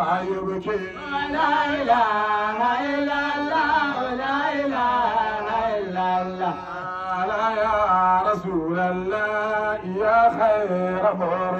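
Men singing a madaha, an Islamic praise song for the Prophet, in turn into a microphone, with long, wavering, ornamented notes. A steady low hum runs underneath.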